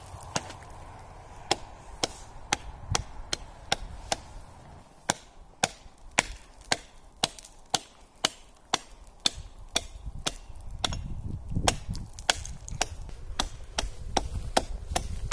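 Hatchet chopping a hole in frozen pond ice: a steady series of sharp, cracking strikes about two a second as the hole is opened through to the water.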